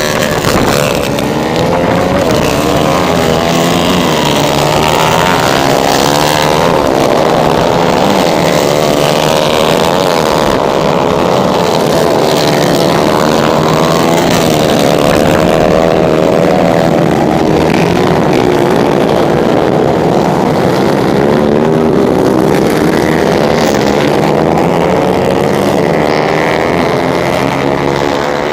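125 cc four-stroke racing motorcycles running together, several engines overlapping and rising and falling in pitch as they rev up and ease off.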